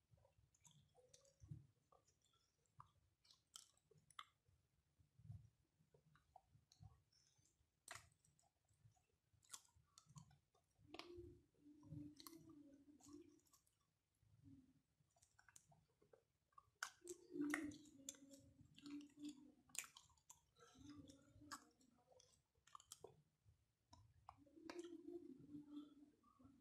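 Quiet close-up eating sounds: a man chewing mouthfuls of rice eaten by hand, with scattered wet mouth clicks and smacks. A few short, low hums from the eater come at intervals.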